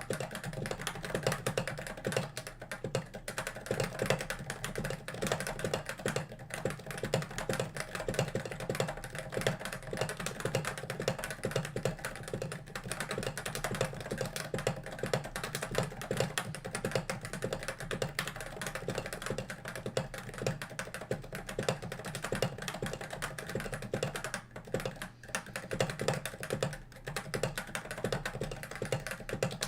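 Fast, continuous typing on a Topre-switch keyboard (Cooler Master NovaTouch) fitted with thick MT3-profile /dev/tty keycaps: a dense, even run of key strokes with the rounded thock of Topre domes under the tall caps.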